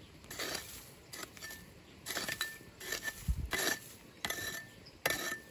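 Small metal hand hoe chopping into dry, leaf-littered soil while digging out a metal detector signal: several irregular strikes, about one a second, some with a short metallic clink, and one heavier thud a little past the middle.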